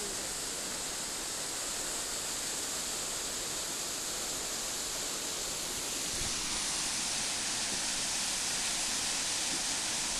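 Rushing water of a waterfall and creek: a steady, even hiss, a little louder after about six seconds.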